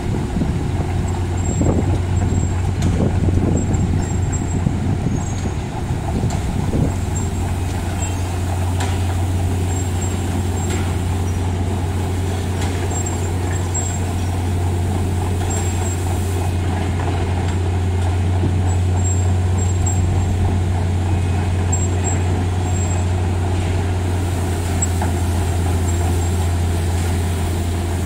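Heavy diesel engine of a Wirtgen cold milling machine running with a steady low drone as the machine drives up onto a lowboy trailer, with scattered clanks in the first several seconds.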